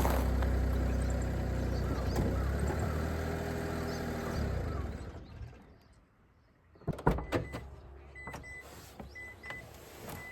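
A car engine running steadily, then dying away about five seconds in as it is switched off. After a moment of near quiet come sharp knocks and clicks like a car door being worked, and short high beeps that repeat every half second or so.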